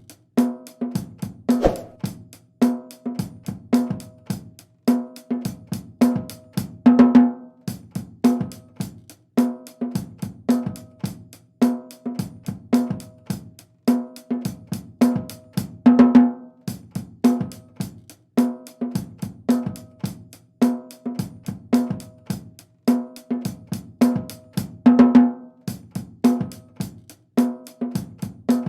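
A drum-kit beat: a low, tuned drum struck over and over, with snare hits and fast hi-hat and cymbal ticks. The pattern repeats about every two seconds, with a louder accent roughly every nine.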